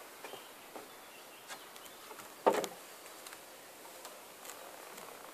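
Feet knocking on the wooden boards and ladder of a treehouse as a child climbs down. There is one loud thump about two and a half seconds in and a few lighter knocks around it.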